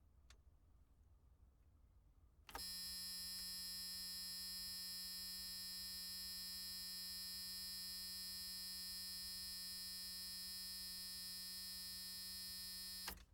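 A long, steady electric buzz, like a buzzer held down, starting about two and a half seconds in, holding one unchanging pitch for about ten seconds, then cutting off sharply.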